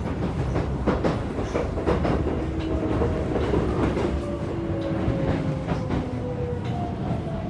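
Keisei 3700 series train running with wheels clicking over rail joints. From about four seconds in, the motors' Toyo GTO inverter tones slide down in pitch as the train brakes and slows.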